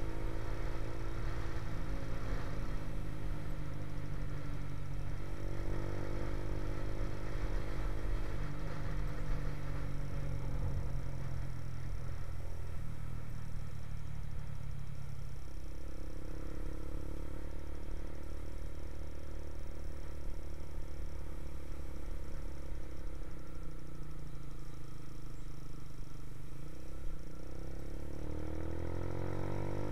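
Motorcycle engine running at road speed under a heavy, steady rush of wind, its note slowly rising and falling with the throttle and climbing near the end as the bike accelerates.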